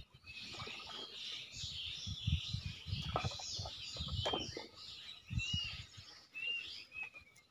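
Small birds chirping and twittering, with a short high chirp repeating every second or so, over irregular low thumps of water around a raft of banana-tree trunks.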